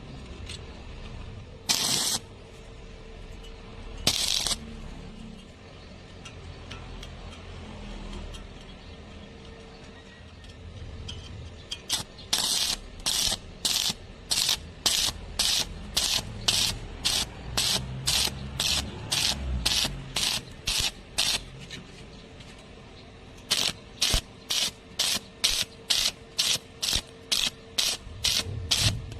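Stick welding arc crackling in short repeated strikes: two single bursts, then long runs of brief arc bursts at about two a second, as in a stitch or whip technique with an electrode.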